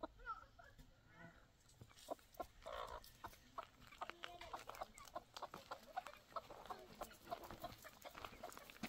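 Chickens clucking faintly, with short scattered calls.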